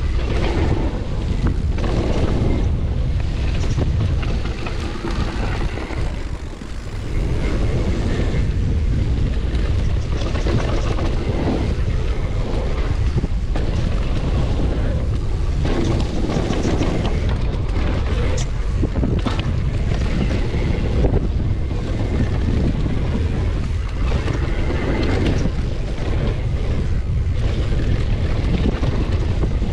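Wind buffeting the microphone over the rumble of a downhill mountain bike's tyres on a dirt trail, with frequent knocks and rattles from the bike over bumps; the noise drops briefly about six seconds in.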